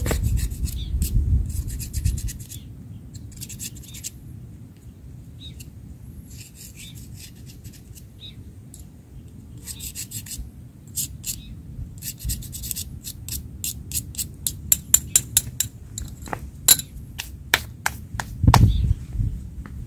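Rubbing and scratching handling noises in short spells, then a quick run of sharp clicks and taps over the last several seconds.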